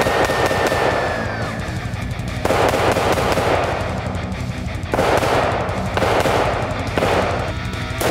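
Rapid, repeated shots from an AR-15 rifle in 5.56/.223, fired in fast succession into a small tree trunk, with background music underneath.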